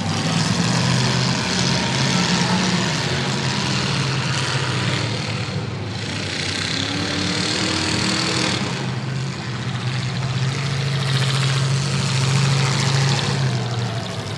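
Big-car demolition derby cars' engines idling and running at low speed, a steady low engine hum with a brief slight rise in pitch about seven seconds in.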